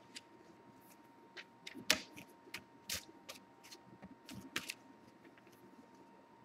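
Sheets of paper rustling and crackling as they are handled, in irregular crisp clicks, the loudest about two seconds in and again at three seconds, with a faint steady high hum underneath.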